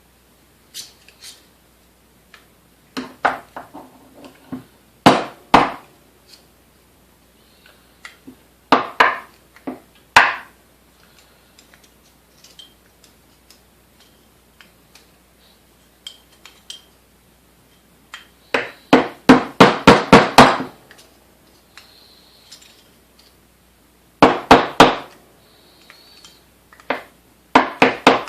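Hammer blows on metal, in short bunches of quick strikes with a longer run of about seven blows in the middle. They are tapping the grinding blade loose from the KitchenAid A9 coffee mill.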